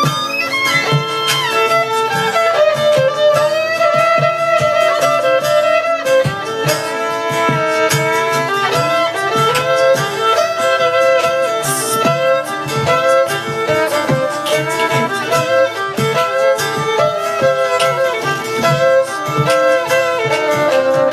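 Instrumental live music: a fiddle plays a gliding, ornamented melody over strummed guitar accompaniment.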